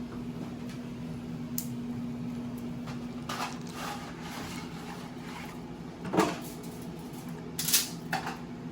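Kitchen sounds: a steady hum with a few sharp knocks of cookware being handled, the loudest about six seconds in and another about a second and a half later.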